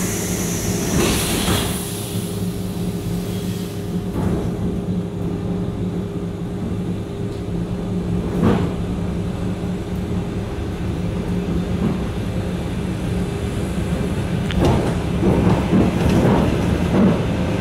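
ET2M electric multiple-unit train, heard on board: a steady electrical hum from the train's equipment, with a hiss of air in the first second or so and scattered knocks from the running gear, busiest near the end.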